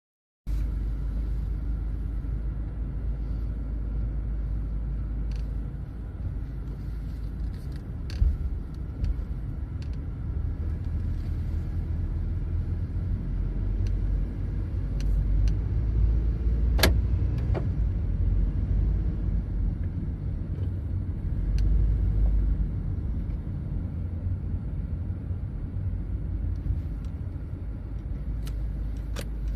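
Inside a moving Honda Stream: steady road and engine rumble, broken by scattered sharp creaking ticks and squeaks from around the windscreen, with a small run of them near the end. The noise is set off by small bumps and by accelerating and braking, and is suspected to come from the body rather than from rubbing interior trim.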